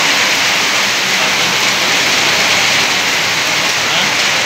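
Heavy rain pouring down onto a wet street: a loud, steady hiss.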